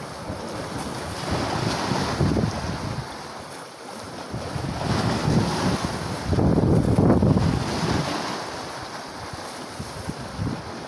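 Wind buffeting the microphone over the wash of sea waves, swelling in gusts about two seconds in and again around seven seconds.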